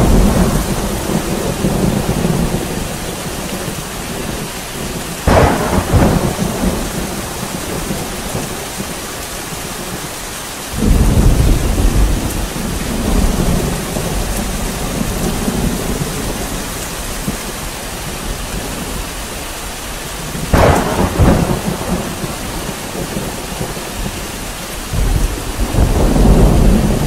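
Steady rain with four claps of thunder that each roll away slowly. The one about eleven seconds in is the deepest rumble.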